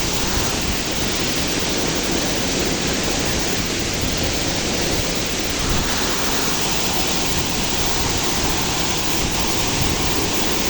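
Waterfall with water rushing steadily, a dense even hiss with no breaks.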